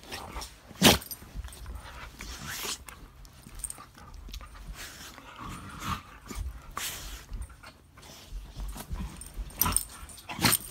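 A dog making small vocal sounds during play, over rustling of bedding, with a sharp knock about a second in.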